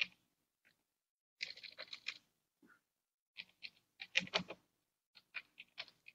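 Faint clicking of computer keyboard keys, typed in three short runs of several keystrokes with pauses between.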